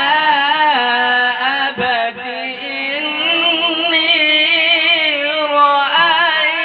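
A male qari reciting the Qur'an (tilawat) into a microphone in a slow, ornamented melodic style. The notes are long and drawn out, and their pitch wavers and slides. There is a brief break about two seconds in before he carries on.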